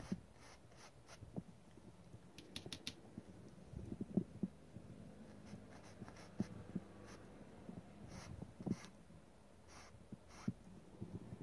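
Paintbrush working oil paint on a stretched canvas: soft, scattered scratchy strokes and dabs, a quick cluster of them a few seconds in and more near the end, with a few dull low knocks.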